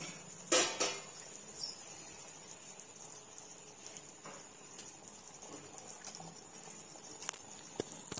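Thick gram-flour bhaji simmering in an aluminium pot on a gas stove, with scattered small pops and ticks. Two sharp knocks come about half a second in, over a faint steady high tone.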